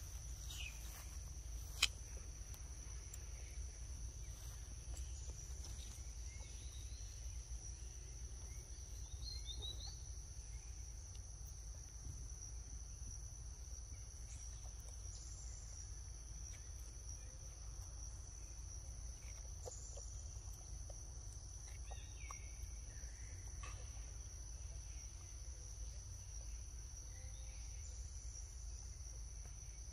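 Steady high-pitched drone of insects such as crickets or cicadas, over a low rumble, with a sharp click about two seconds in and a few faint chirps.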